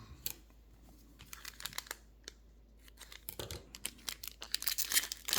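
Plastic wrapping on trading-card packaging crinkling and tearing, a run of quick crackles that gets busier and louder near the end.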